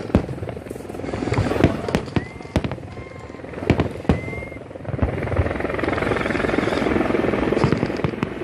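Fireworks going off: a run of sharp bangs with a few brief whistles. From about five seconds in there is a dense, continuous crackle.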